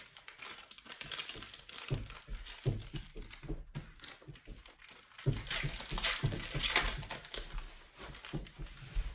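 Plastic wrapper of a Panini Prizm basketball card pack crinkling as it is handled and torn open, louder about midway through.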